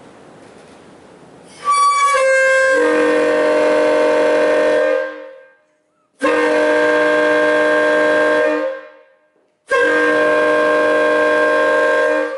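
Mutt train air horn built from Nathan K-series bells 1, 4 and 4A (a 'K144a') sounded in three long blasts, each a loud chord of several steady tones; the first blast opens with a sputtering start as the bells come in one after another. The bell combination gives a discordant, very ugly chord.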